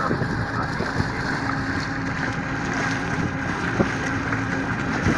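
Suzuki outboard motor running steadily under way, a constant low drone over water rushing past the hull, with wind buffeting the microphone.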